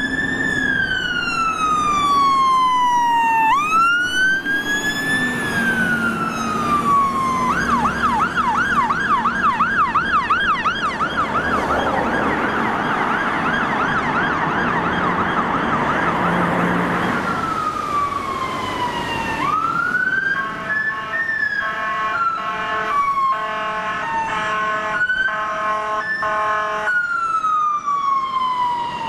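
London Fire Brigade fire engine sirens. A slow rising-and-falling wail gives way to a fast yelp at about a third of the way in, then returns to the wail. Later comes a stretch of alternating two-tone notes before the wail again near the end.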